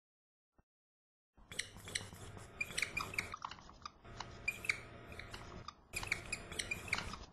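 Marker pen drawing on a whiteboard: quick squeaks and scratches of the felt tip across the board, starting about a second and a half in, with two short pauses between strokes.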